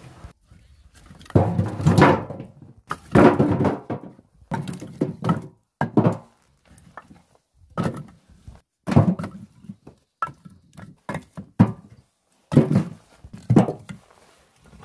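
Split birch firewood logs being dropped one after another into a wheelbarrow: a series of irregular wooden thunks and knocks, a few with a short ringing clatter.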